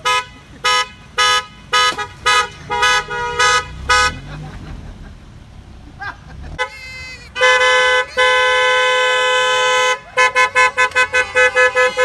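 Car horns honking from passing cars: a run of short, rapid toots, a lull with low passing-car noise, then one long held blast a few seconds later, followed by more rapid toots near the end.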